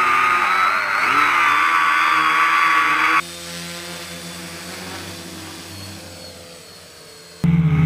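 Electric motor and propeller of a small radio-controlled air-propelled boat whining close up, the pitch wavering with throttle. About three seconds in, the sound drops to a much fainter, distant version of the same motor that slowly fades, and a loud low hum cuts back in near the end.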